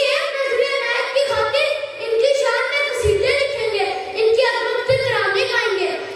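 A boy's voice declaiming a speech into a microphone, high-pitched and raised, with a rising and falling, almost sing-song delivery and no pause.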